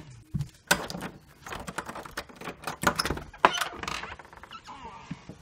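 Quick rattling clicks of a door's latch and handle as the door is unlocked and opened. They last about three seconds and then die away.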